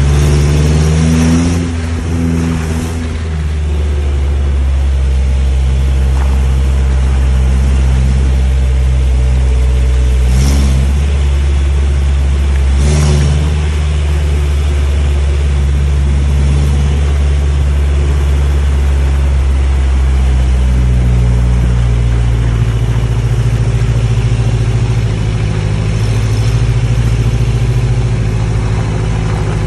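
Off-road vehicle's engine running steadily while driving, with tyre noise on a dirt track. There are two brief knocks about ten and thirteen seconds in, and the engine note shifts upward about two-thirds of the way through.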